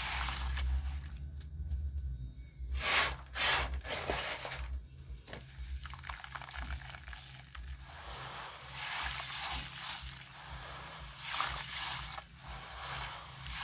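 Hands squeezing and crumbling soaked white lime and coloured stones under water in a bowl: wet squishing and sloshing that comes in several swells, loudest about three seconds in.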